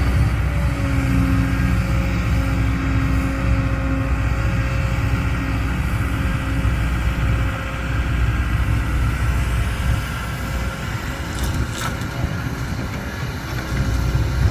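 Motor vehicle driving, its engine running steadily under a continuous low rumble of road noise; a faint engine tone fades out after about five seconds.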